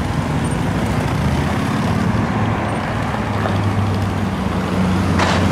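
Ferrari 458 Spider's 4.5-litre V8 running at low, steady revs as the car cruises slowly past in city traffic, a constant low drone with no revving. Two short hissing sounds near the end.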